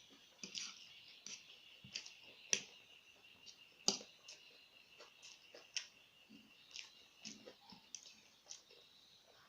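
Close-up eating sounds: irregular small clicks and smacks of chewing and mouth noises, one or two a second, with two sharper ones in the first half. A faint steady high tone runs underneath.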